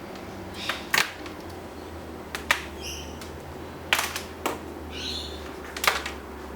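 Several sharp clicks and knocks, with three short high chirps in between, over a steady low hum.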